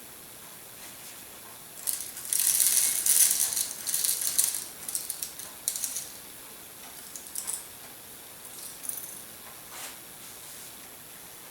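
Whole peppercorns poured into a pepper mill's hopper, rattling densely for a few seconds, then a few scattered clicks as the last ones settle.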